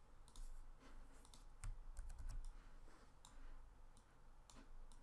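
Faint, irregular clicking of a computer mouse and keyboard keys, a dozen or so separate clicks.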